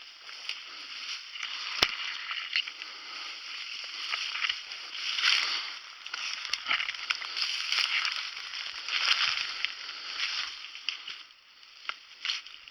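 Footsteps crunching and swishing through leaves and brush, swelling with each stride, with a few sharp snaps among them.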